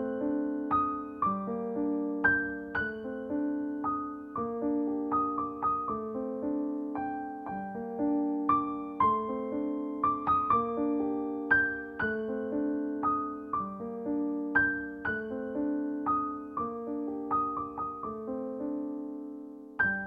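Background music: solo piano, single notes struck one after another in a steady, repeating pattern, each ringing and fading.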